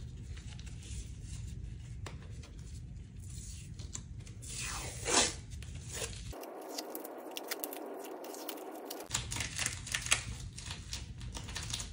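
Tape and adhesive tearing as the taped layers of a shot homemade armor plate are pulled apart by gloved hands, with crinkling and scraping as the aluminium strike-face plate is lifted off. The loudest tear comes about five seconds in, and a few sharp clicks come near the end.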